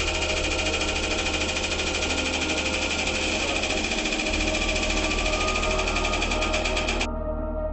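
Hydraulic press pump running as the press head squeezes a solid gold bar: a steady, fast-pulsing mechanical buzz that cuts off abruptly about seven seconds in.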